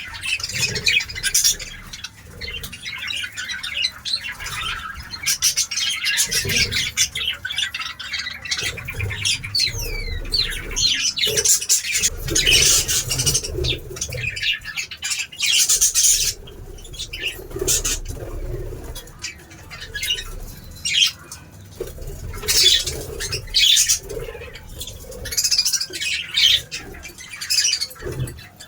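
A group of birds chirping and squawking in a continuous, busy chatter of short calls and harsh squawks.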